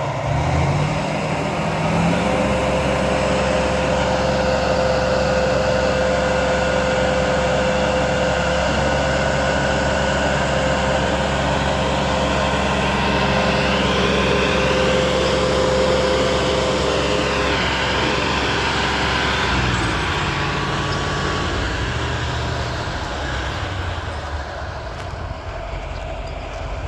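Heavy diesel engine of construction equipment revving up over the first couple of seconds and running steadily at high revs, with a thin whine above it. It drops back to lower revs about twenty seconds in.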